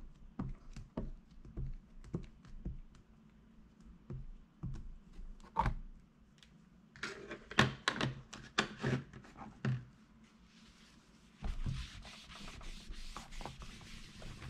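Dye ink pad dabbed repeatedly onto a rubber background stamp: a run of light taps, thickest about seven to ten seconds in, then a steady rubbing from about ten seconds in.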